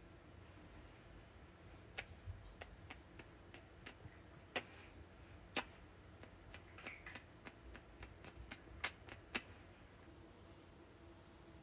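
About twenty light, sharp clicks and taps at irregular intervals over faint room tone, a few of them louder, stopping a couple of seconds before the end.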